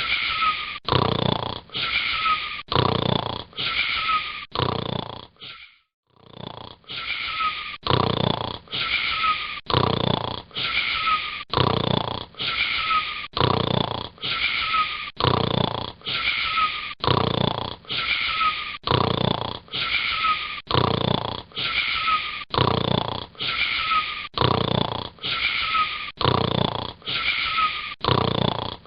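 A boy snoring: a fast, very even train of raspy snore-like breaths, roughly one every three-quarters of a second, with a short break about six seconds in.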